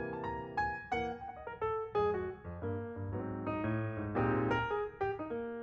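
Background music: a piano playing a melody over chords, with notes struck in quick succession.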